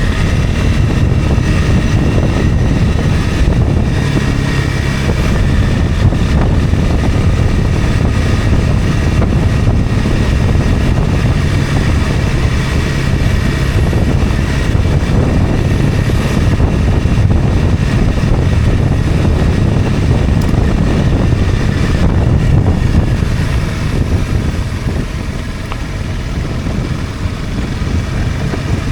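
Honda CRF250 Rally's single-cylinder engine running on a downhill ride, mixed with a steady rushing noise. It quietens for a few seconds near the end.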